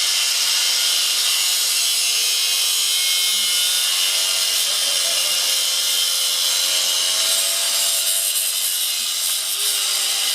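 Angle grinder, run from a pedal-powered generator, cutting through a steel bike lock: a steady, loud, high grinding hiss of the abrasive disc on metal.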